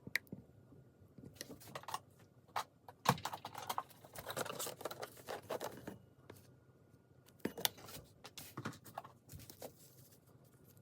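Irregular small taps, clicks and scrapes of objects being handled at close range, busiest in a stretch of rustling and scraping near the middle.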